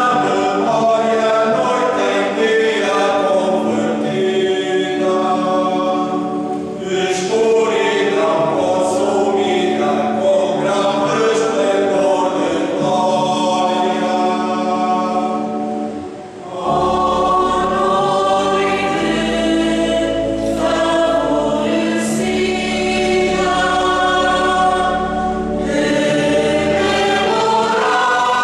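Mixed choir of men and women singing a Christmas piece with organ accompaniment. Deep held bass notes come in after a brief pause about halfway through.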